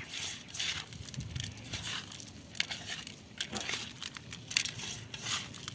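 Crushed dry Wai Wai instant noodles mixed with shredded cabbage and herbs, tossed by hand in a metal bowl: an irregular dry crackling and rustling of the noodle pieces.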